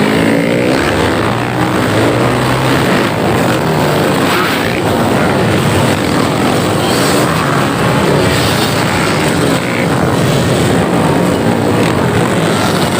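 Many trail motorcycles running and revving together, a loud dense engine din with revs rising and falling.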